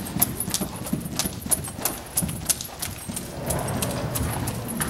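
Hoofbeats of a ridden horse moving at a quick, even pace on arena footing: a steady run of sharp thuds, several a second.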